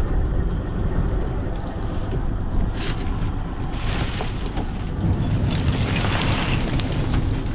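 Steady low drone of a mechanised fishing boat's engine, with wet rushing and slithering as a netful of live fish is tipped out onto the deck, loudest about six seconds in.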